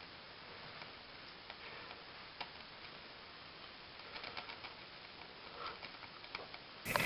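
Faint steady hiss with scattered small clicks and ticks. Music cuts in abruptly right at the end.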